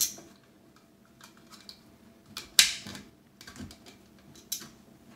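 Round blue plastic electrical box being handled and fitted into a hole in drywall: a few sharp plastic clicks and knocks, the loudest right at the start and about two and a half seconds in, with light rustling between.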